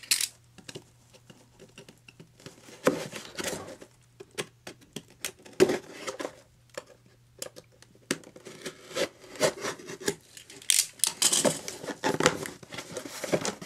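Box cutter slitting the packing tape on a small cardboard box, then the cardboard flaps being pulled open and handled: irregular scrapes, rubs and clicks, the loudest one about six seconds in, with a denser run of cardboard noise near the end.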